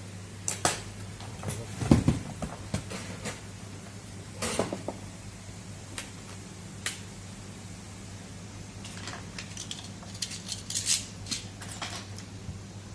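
Irregular hard clicks and knocks of a laptop's parts and tools being handled, the loudest a dull knock about two seconds in and a quick run of clicks near the end, over a steady low electrical hum.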